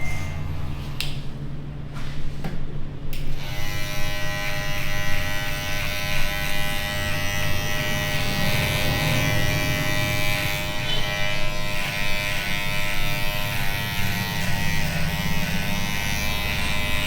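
Electric hair clippers buzzing steadily. The buzz comes in abruptly about three seconds in.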